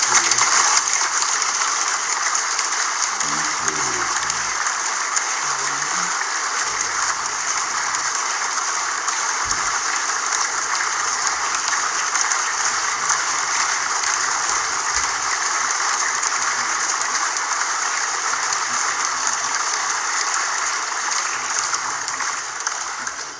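A large crowd applauding steadily, a dense crackle of many hands clapping that dies away near the end.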